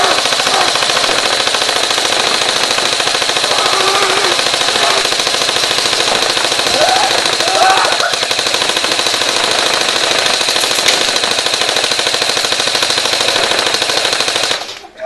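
Airsoft Stoner light machine gun firing full auto in one long unbroken burst of rapid shots, stopping shortly before the end, as it empties 363 BBs into one person.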